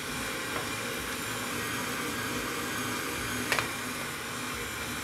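Electric meat grinder running steadily as it minces beef, bread and onion, with two short knocks, the louder one about three and a half seconds in.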